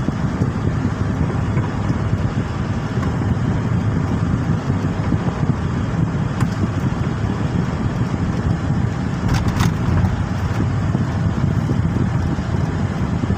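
Car interior noise while driving: a steady low rumble of engine and tyres on the road, heard from inside the cabin, with a few faint clicks about nine and a half seconds in.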